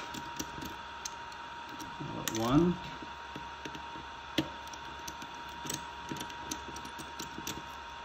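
Precision screwdriver turning out tiny Phillips screws from a drone controller's circuit board: a run of small clicks and ticks as the bit works the screws, with one sharper click about four and a half seconds in.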